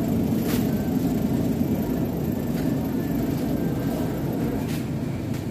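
Shopping cart rolling over a tiled store floor: a steady rattling rumble with a few faint clicks.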